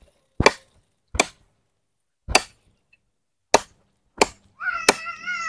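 A katari blade chopping a dry fallen tree branch: six sharp, separate cracks of the blade biting the dry wood, roughly a second apart and unevenly spaced.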